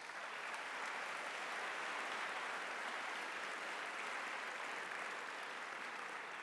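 A large audience of students applauding, a dense steady clapping that slowly fades toward the end.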